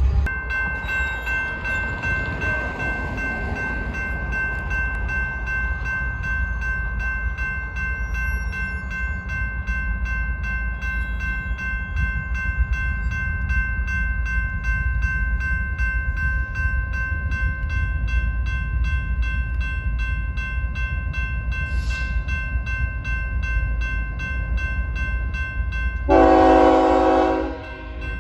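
A train rolls by with a steady low rumble and a sustained high whine. Near the end comes one loud train horn blast lasting about a second and a half.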